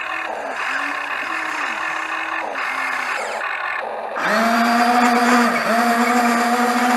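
Excavator engine and hydraulics working, the pitch rising and falling again and again as the machine moves. About four seconds in it jumps to a louder, steady whine under load, with one brief dip.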